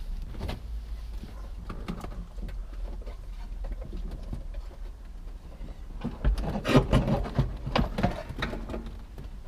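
Scattered knocks, taps and rubbing of plastic and metal as a car's dashboard assembly on its aluminium carrier is lifted and worked into place, over a steady low hum. The handling noise gets louder and busier about six seconds in.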